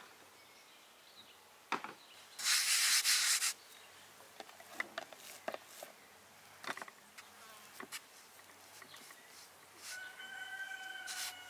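Light knocks and rubs of hands and dough on a floured wooden board, with a loud hissing burst lasting about a second near the start. A rooster crows near the end.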